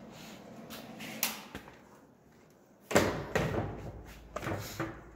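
Clanks and knocks of a welded sheet-metal grille shell and hand tools being handled on a steel workbench. The loudest comes about three seconds in, followed by a short ringing, with lighter knocks before and after it.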